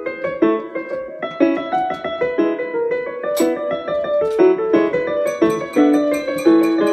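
Background piano music: a lively melody of quick notes played on a piano or electric piano.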